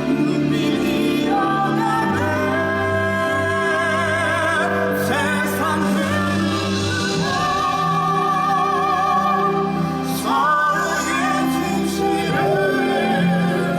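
Musical-theatre singing with vibrato, long held notes over orchestral accompaniment.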